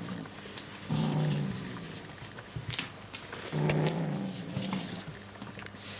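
Bengal kitten growling possessively over a toy it treats as its prey: two long low growls, one starting about a second in and another about three and a half seconds in, with a few light clicks and rustles between.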